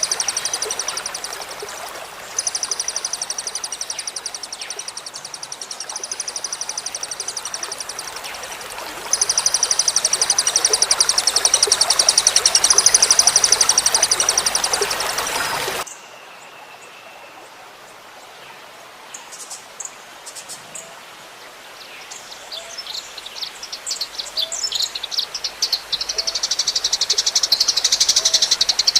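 Songbird singing very fast, high-pitched trills in rapid bursts over trickling water. About halfway the water and song cut off suddenly; scattered chirps then build back into fast trills near the end.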